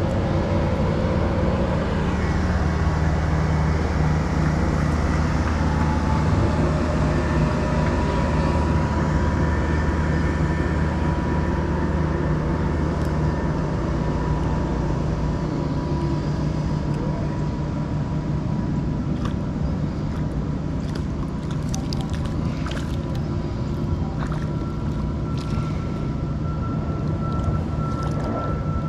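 An engine running steadily with a low hum and a thin steady whine above it; the low hum eases about halfway through.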